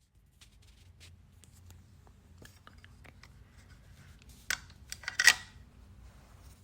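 Faint low room hum with scattered small clicks and handling noises; a sharp click about four and a half seconds in, then a louder brief rustling clatter just after five seconds.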